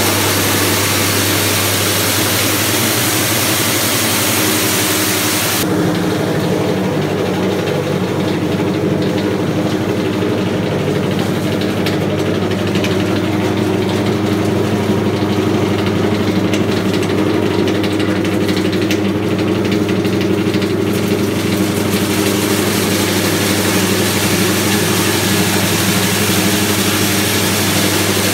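Honda GX160 single-cylinder four-stroke petrol engine running steadily as it drives a stainless-steel coffee huller. A high hiss drops away about six seconds in and comes back near the end.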